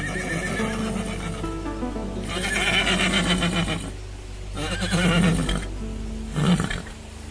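A hungry horse whinnying twice, each call about a second long, with a short burst of sound near the end. Background music plays underneath.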